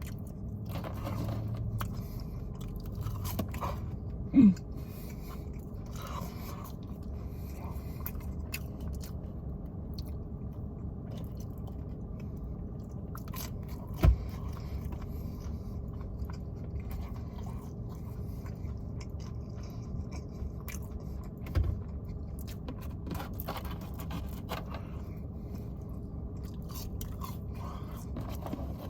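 A person chewing and eating fast food close to the microphone, with small mouth and wrapper noises, over a steady low hum. Three brief loud knocks stand out, about four seconds in, near the middle and about two-thirds through.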